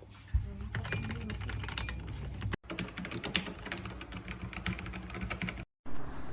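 Typing on an AIGO darkFlash GD100 mechanical keyboard with K Yellow switches: a rapid, steady run of key clicks, broken twice by abrupt split-second dropouts.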